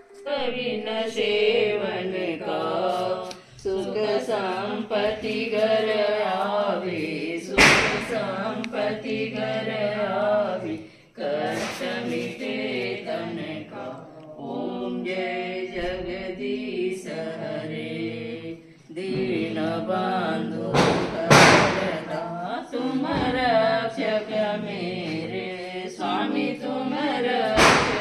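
Voices singing a Hindi devotional song (bhajan) in a chanting style, broken by a few sharp knocks.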